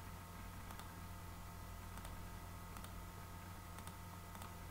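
A few faint computer mouse clicks, spread a second or so apart, over a low steady electrical hum.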